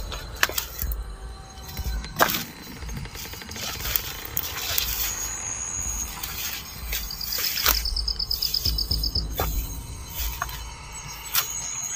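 Footsteps crunching through leaf litter and undergrowth, with scattered sharp crackles and a steady low rumble. A rapid, high pulsed trill sounds for about two seconds a little past the middle. Background music runs underneath.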